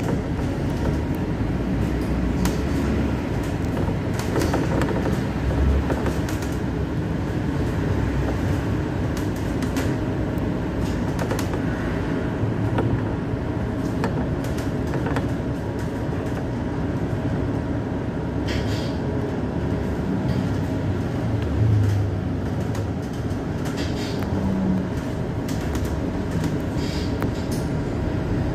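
Cabin noise inside a moving city bus: engine and road rumble as it pulls away and drives on, with frequent small rattles and knocks and a louder thump about three quarters of the way through.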